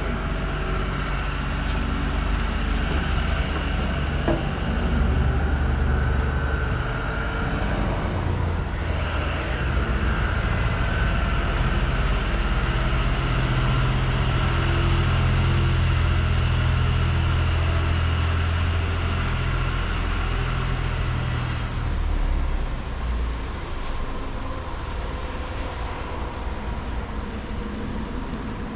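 Electric motor of a travel trailer's power awning running as the awning rolls in: a steady low mechanical hum that shifts in pitch a few times and drops away about three-quarters of the way through.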